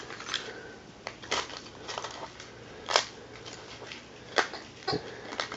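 Scattered clicks and light clatter of small metal objects being handled by hand, the loudest a sharp click about three seconds in.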